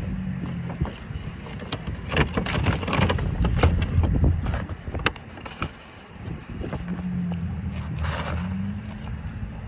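McDonald's cardboard burger box being handled and opened by hand: a run of crackles, taps and scrapes, thickest in the first half. Underneath runs a steady low rumble with a faint hum.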